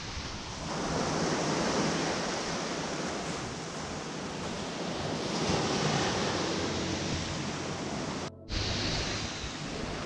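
Small sea waves breaking and washing up a sandy, shingly cove, a steady surf hiss with wind buffeting the microphone. The sound cuts out for a moment near the end.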